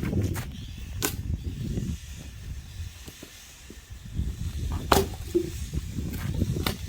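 Three sharp, widely spaced knocks from a hammer striking the wood being split, over a low rumbling handling noise.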